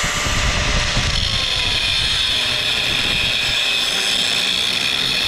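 Angle grinder running continuously under load, grinding through the welded seam of a steel lighting-ballast transformer case.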